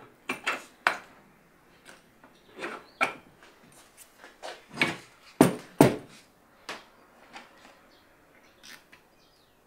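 Small coil springs and metal hardware being fitted by hand to a plywood clamp with steel linkages: scattered clicks, taps and light knocks, the two loudest a little past the middle.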